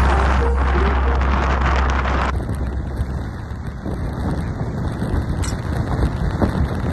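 Wind rushing and buffeting against the microphone on a ship's open upper deck, with a heavy low rumble that drops away about two seconds in.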